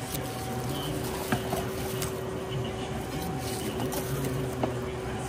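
Steady electrical hum of shop equipment, with a few light clicks and knocks, the sharpest about a second in and another near the end.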